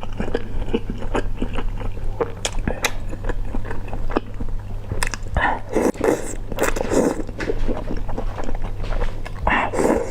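Close-miked chewing and biting of food, with many small mouth clicks and louder bursts of chewing noise around the middle and near the end.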